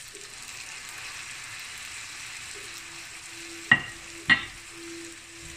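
Spaghetti sizzling steadily in rendered guanciale fat in a skillet, the stage at which the pasta has soaked up the fat and is ready for a ladle of pasta water. A little past the middle come two sharp metallic clinks about half a second apart, louder than the sizzle.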